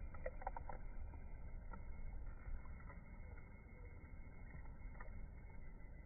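Faint, steady low outdoor rumble, with a few faint short sounds just after the start and again about five seconds in.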